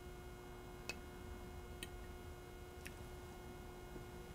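Faint sharp ticks, three of them about a second apart, over a low steady hum.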